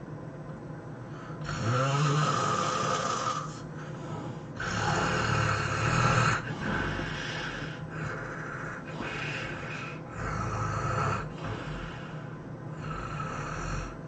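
A person snoring heavily in sleep: about six loud snores a second or two apart, the first two the loudest.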